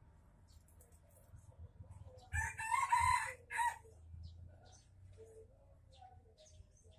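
A rooster crows once, about two and a half seconds in, the call lasting about a second and a half.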